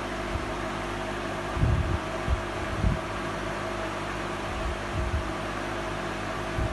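Steady mechanical hum with a few constant tones in it, like a fan running. Several short low thumps from the camera being handled come between about one and a half and five seconds in.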